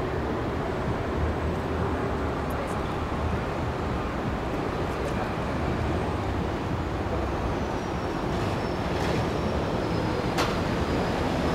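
Steady low rumble of outdoor city background noise, with a faint high whine sliding in pitch in the second half and a single sharp click near the end.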